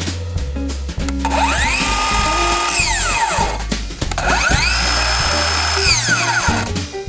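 Ryobi ONE+ brushless cordless circular saw motor spinning up and winding down twice, each time a rising whine that holds for a second or so and then falls away, over background music.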